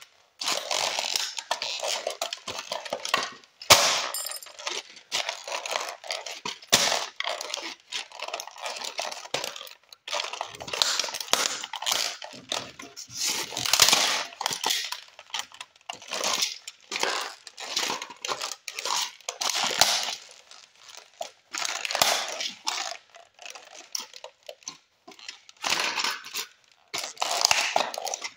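Toy model cars being crushed and ground underfoot on a concrete floor: an irregular run of cracking, crunching and scraping of plastic and metal parts, with small pieces clattering.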